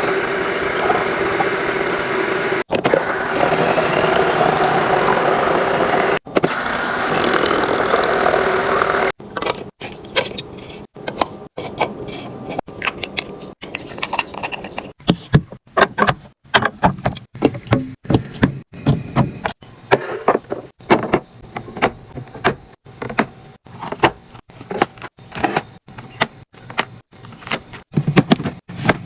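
Food containers and packaging being handled while a fridge is stocked: a steady rushing, rustling noise for about nine seconds, cut off abruptly three times, then a run of irregular light clicks and knocks as items are set down.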